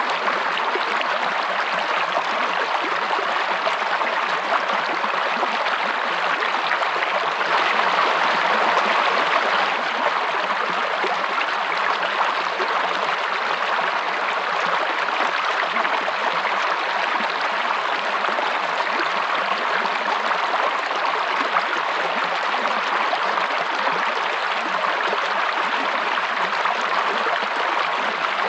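Water running in a stream, a steady even flow with no breaks.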